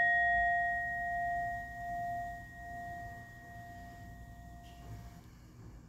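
A struck bell ringing out, its clear tone wavering slowly as it fades and dying away about five seconds in.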